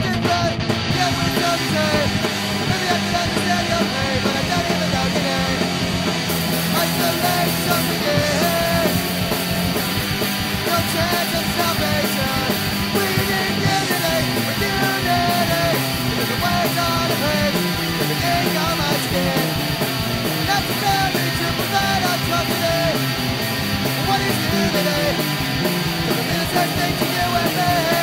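Punk rock band playing, with electric guitar, bass and drums; the sound gets brighter and fuller about six seconds in.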